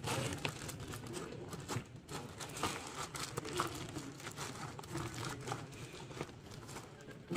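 A parcel being cut open with scissors: plastic packaging crinkling and rustling, with many small irregular clicks and snips.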